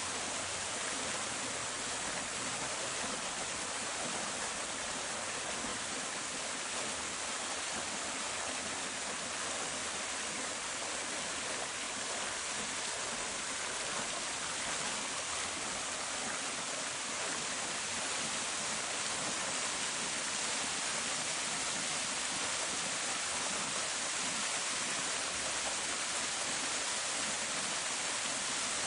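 Park fountain: water splashing steadily into its basin, an even rushing hiss with no breaks.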